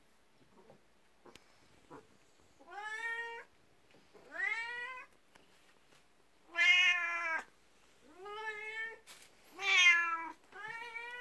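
Domestic cat meowing over and over, about six meows in quick succession, each rising at the start. The first begins about two seconds in, and the loudest come about halfway and near the end.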